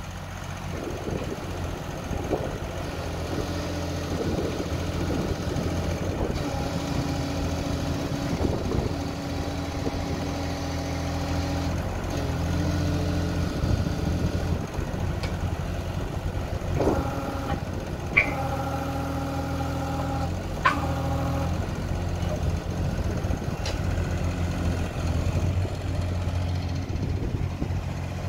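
Takeuchi TB216 mini excavator's three-cylinder diesel engine running steadily while the boom, arm and bucket are worked. A whine from the hydraulics rises and drops away as the functions load up. A couple of sharp metallic clanks come past the middle.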